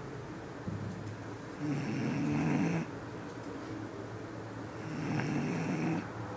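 Bull terrier snoring while asleep: two long snores, each about a second long and about three seconds apart, with quieter breathing between.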